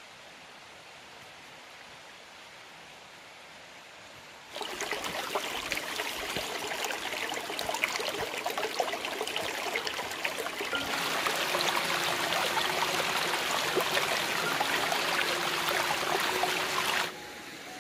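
Shallow stream running and splashing over rocks. It starts suddenly about four and a half seconds in, after a faint steady outdoor hiss, grows louder around eleven seconds, and drops off sharply just before the end.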